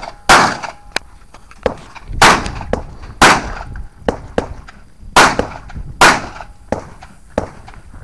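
Pistol shots fired through a USPSA competition stage: about five loud reports at uneven spacing, each with a short echo, and fainter reports between them.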